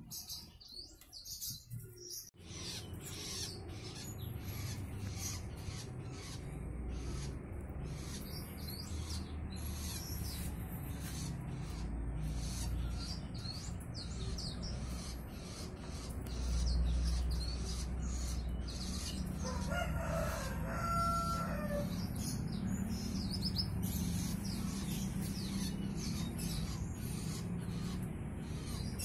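Canaries chirping throughout, with a rooster crowing once about twenty seconds in, over a steady low background rumble.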